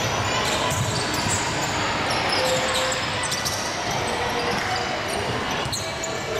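Youth basketball game on a wooden indoor court: the ball bouncing on the hardwood amid the steady, echoing din of players moving in a large hall.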